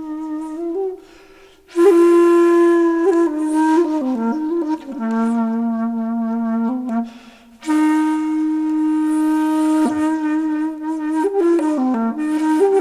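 Music: a solo wind instrument with a flute-like tone playing a slow melody of long held notes that step between pitches, with two short breaks for breath.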